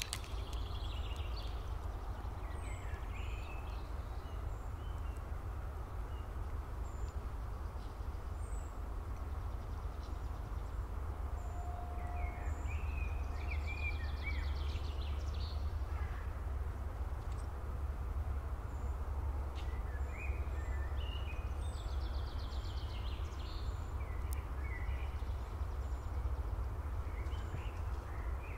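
Low wind rumble on the microphone, with scattered short bird chirps and trills over it.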